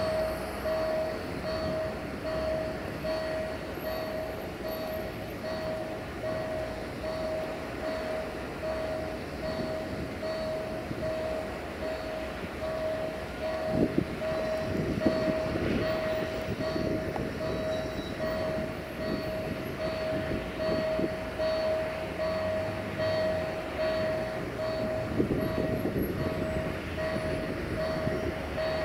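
Sulzer diesel engine of a 060-DA (LDE2100) diesel-electric locomotive running as it slowly hauls a loaded freight train, with a low rumble that swells twice. A regular electronic beeping, more than once a second, sounds throughout.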